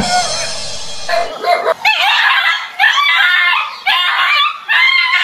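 A dog barking repeatedly at a fake tiger, about one bark a second, after a short rumbling sound in the first second.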